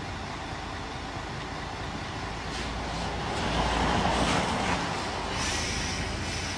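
Coach bus engine idling with a steady low rumble, swelling louder for a second or two about halfway through. A brief high hiss follows near the end.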